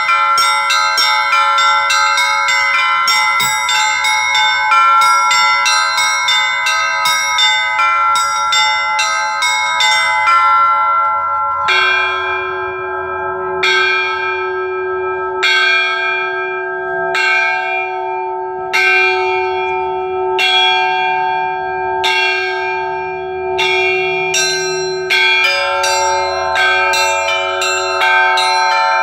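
Russian church bells rung by a bell-ringer in the Ural style. Small bells are struck in a quick, dense pattern; partway through, a deeper bell comes in, struck about every second and a half to two seconds under sparser small bells. Near the end the quick ringing picks up again.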